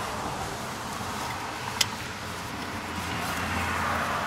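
A single sharp metal click about two seconds in, from a wrench tightening a new coolant temperature sensor, over a steady background rush.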